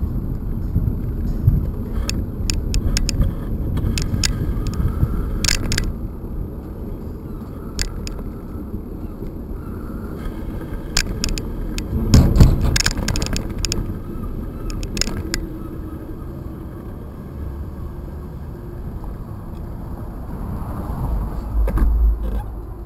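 Bicycle riding over a brick sidewalk: a steady low rumble of tyres and wind on the microphone, with scattered clicks and rattles, a louder run of them about halfway through.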